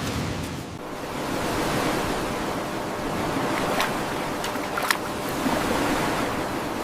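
Surf washing, a steady rushing noise that swells about a second in, with a couple of short sharp clicks near the middle.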